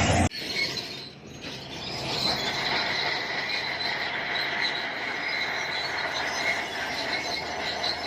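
Steel crawler tracks of a bulldozer squealing with a steady high-pitched squeal, heard after loud machine noise cuts off abruptly just after the start.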